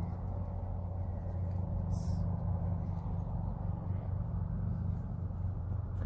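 A steady low engine drone, unchanging throughout.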